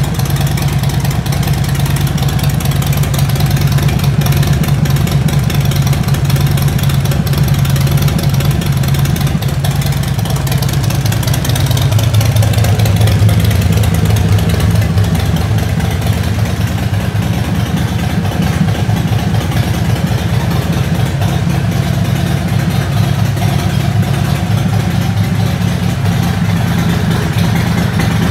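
Harley-Davidson Milwaukee-Eight 114 V-twin with Vance & Hines exhaust and Screaming Eagle intake, idling steadily while it warms up after a cold start.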